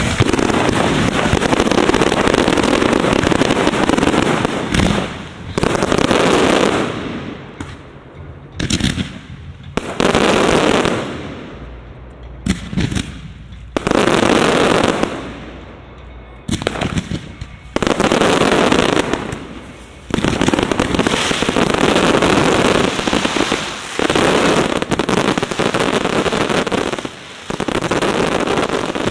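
Fireworks display firing a dense barrage of aerial shell bursts and crackle. It comes in loud waves a few seconds long, with brief lulls between them.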